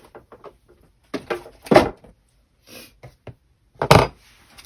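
Small clicks and knocks of supplies being put into a storage drawer and the drawer being handled, with two louder knocks, one about two seconds in and one near the end.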